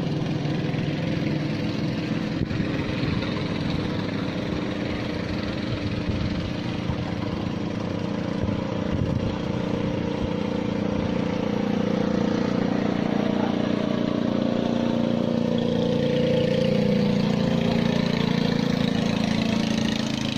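A small engine running steadily, growing slightly louder past the middle.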